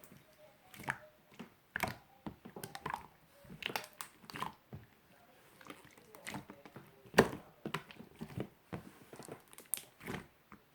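Purple marbled slime being handled, giving irregular sticky clicks and pops, the loudest about seven seconds in.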